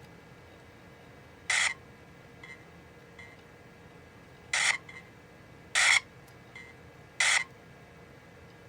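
Compaq Armada 7770DMT laptop's built-in speakers playing four short test sounds a second or so apart, each one harsh and not healthy-sounding: the owner takes this for a failing sound card.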